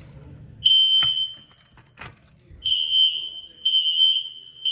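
Electronic fire alarm sounder giving a high, piercing steady tone. One short beep comes just after half a second in, with sharp clicks at about one and two seconds. From about two and a half seconds the tone sounds in long pulses broken by very short gaps.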